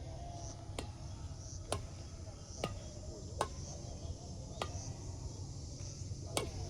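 Badminton rally: a shuttlecock struck back and forth with rackets, six sharp hits about a second apart. Insects chirp faintly and steadily behind.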